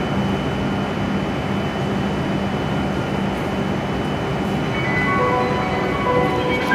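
W7 series Shinkansen train standing at the platform, giving off a steady hum with a thin high whine under the echo of the station roof. A chiming melody starts about five seconds in.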